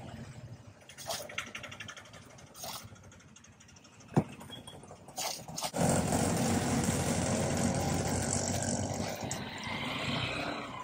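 Street background with scattered light clicks and one sharp knock about four seconds in. From about six seconds a motor vehicle's engine runs loud and close, a steady rumble over a wide hiss, easing off near the end.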